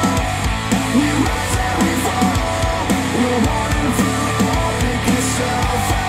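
Rock music with a repeating guitar riff and steady drum hits, played through KEF Q150 bookshelf speakers driven by an NAD C 338 integrated amplifier.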